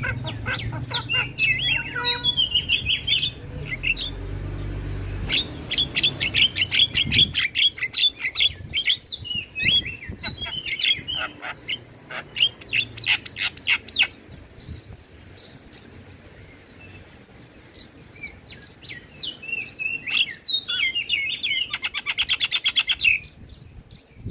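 Javan myna (jalak kebo) singing in bouts of rapid, harsh chattering notes and short whistles, with a quieter lull about halfway through.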